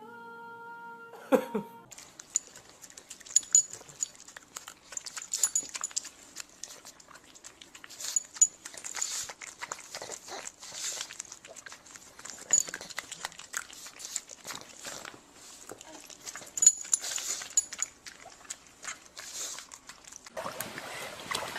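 Small noises from a puppy: a brief whine about a second in, then a long run of short clicks and scuffs.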